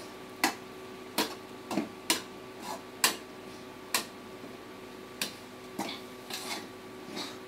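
Steel slotted spoon clinking and scraping against a black kadai while bread pieces are stirred into the masala, with about a dozen irregular knocks over a faint steady hum.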